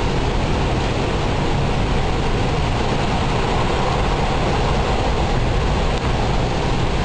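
Hurricane Wilma's wind blowing hard and steadily, a continuous rushing noise with a deep rumble underneath.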